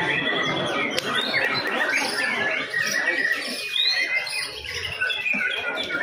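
Caged white-rumped shamas singing, a dense stream of rapid, varied chirps and whistles with a few longer held notes.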